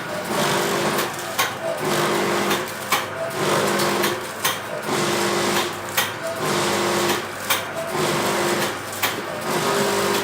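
Automatic packaging machine for granulated palm sugar running through its packing cycle. A motor hum repeats with a sharp clack about every second and a half.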